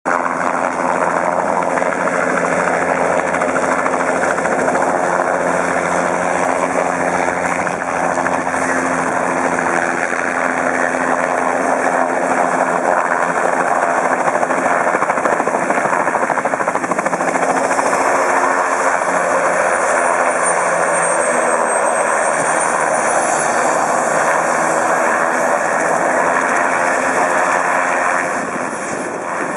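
Bell 206 helicopter's turbine and rotor running steadily as it lands and idles on the ground. A thin high whine dips in pitch and rises again past the middle, and the noise eases slightly near the end.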